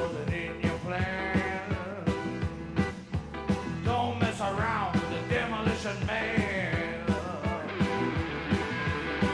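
Live rock band playing an instrumental passage: drums keep a steady beat under electric guitar and keyboard, with a lead line bending in pitch about halfway through.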